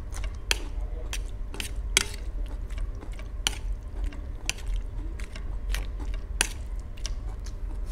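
Metal fork clinking and scraping against a stainless steel plate while gathering noodles: an irregular run of sharp metallic clicks.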